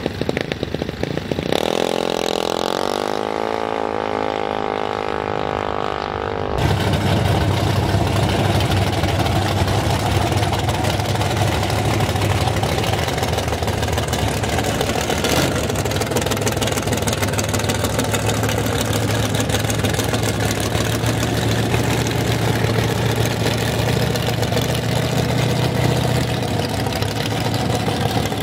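Drag-racing vehicle engines: an engine note falling steadily in pitch for a few seconds, then, about six seconds in, a louder engine running steadily close by.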